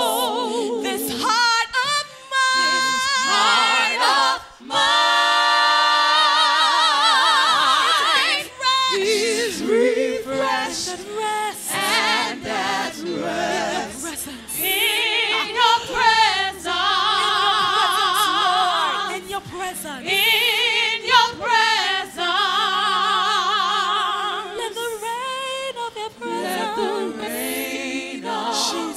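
A man and a woman singing a slow gospel worship song into microphones, holding long, wavering notes. A low sustained bass comes in underneath about a quarter of the way in.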